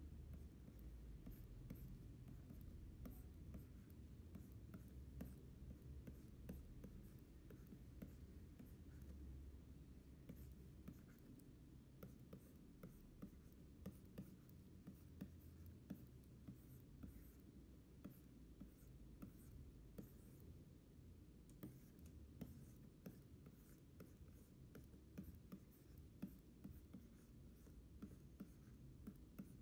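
Faint scratching and small irregular ticks of a stylus nib drawing strokes on a pen display's screen, over a low steady hum.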